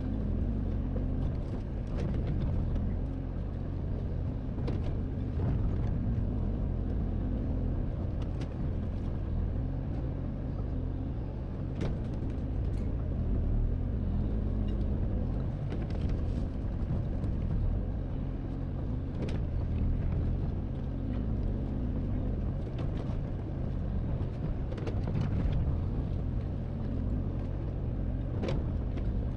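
Hydraulic excavator's diesel engine running steadily while it digs, with sharp knocks every few seconds.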